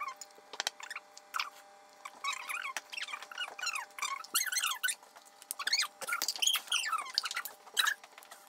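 Wet, squelching squeaks and scrapes of a plastic scoop spreading thick tomato sauce over raw pizza dough, in short irregular strokes with small clicks.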